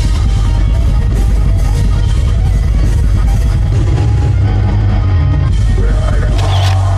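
Heavy metal music with electric guitar and drum kit, loud and steady.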